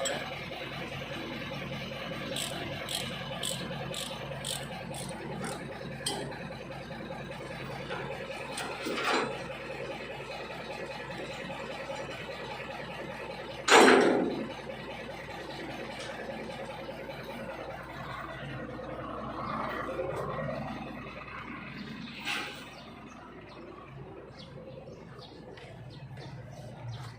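Heavy-equipment diesel engine running steadily, with scattered clicks in the first few seconds. A sharp, loud hiss comes about fourteen seconds in, with smaller hisses near nine and twenty-two seconds.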